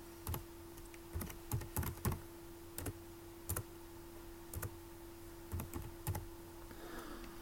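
Computer keyboard being typed slowly: single keystrokes at an uneven pace with short pauses between them, over a faint steady hum.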